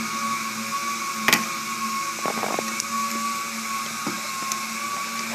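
A steady electric motor hum, with one sharp snap about a second and a quarter in.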